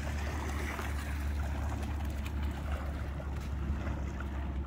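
Wind rumbling steadily on the microphone.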